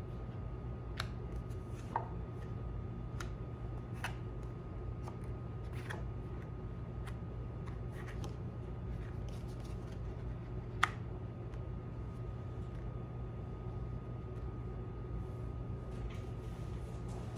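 Oracle cards being handled and laid out on a table: scattered light taps and clicks of cards being turned over and set down, the sharpest about eleven seconds in, over a steady low hum.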